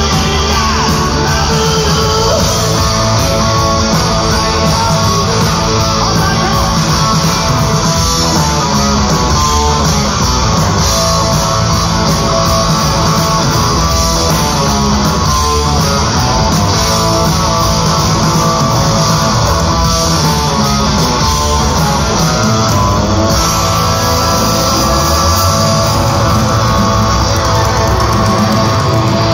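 Rock band playing live, loud and without a break: electric guitar to the fore over bass guitar.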